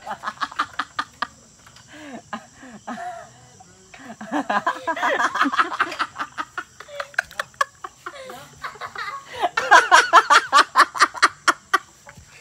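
Person laughing hard in rapid pulsing bursts, in three bouts: briefly at the start, again from about four to six seconds in, and loudest from about nine and a half to twelve seconds in.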